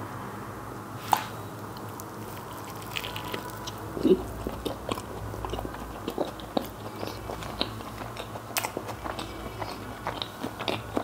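A person chewing and biting a burger close to the microphone: irregular small clicks of chewing, with louder ones about a second in and about four seconds in.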